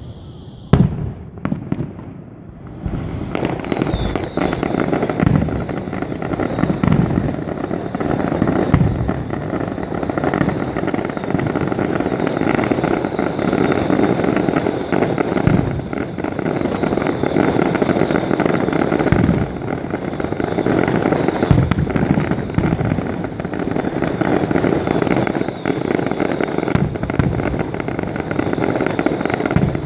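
Fireworks finale: a single sharp bang about a second in, then from about three seconds a dense, continuous barrage of crackling with frequent shell bursts booming through it.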